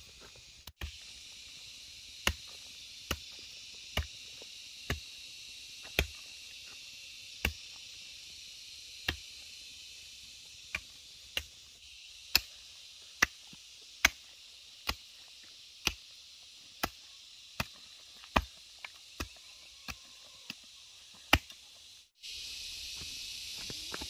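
A hand tool chopping repeatedly while clearing garden ground, about one stroke a second and unevenly spaced, over a steady high hiss.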